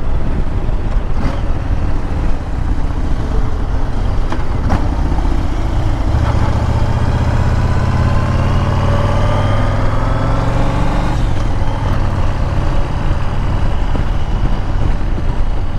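Motorcycle engine running under way, with wind rushing on the microphone. About six seconds in the engine note climbs steadily as the bike accelerates, then drops off suddenly about eleven seconds in.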